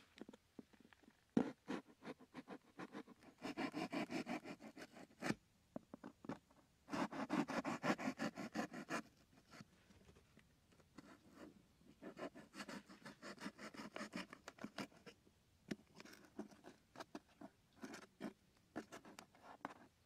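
A knife blade sawing through corrugated cardboard in bursts of rapid scraping strokes, each burst lasting one to two seconds, with pauses between.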